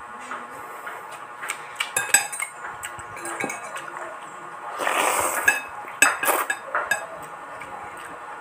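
Metal spoon and fork clinking and scraping against a ceramic bowl while eating, with sharp clinks about two seconds in and again around six seconds. About five seconds in there is a short slurp from the spoon.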